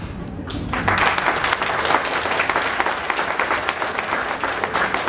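Audience applauding: many hands clapping, starting just under a second in and keeping up steadily.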